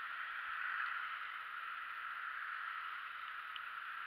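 Steady hiss of tyres rolling on a rain-wet road, with no engine heard.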